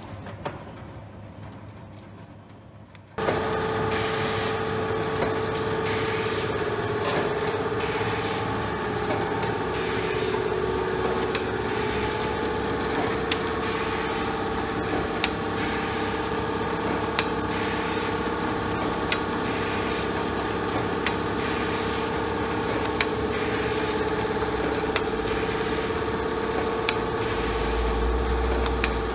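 Specialised Adhesive Process MkIII machine starting up about three seconds in, jumping suddenly to a steady mechanical running noise with a steady mid-pitched hum. Sharp ticks come about every two seconds as it runs.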